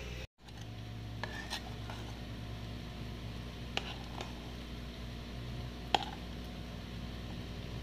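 A steady low hum with a handful of light clicks and taps of a metal spoon against a bowl, spaced a second or two apart. The sound drops out briefly just at the start.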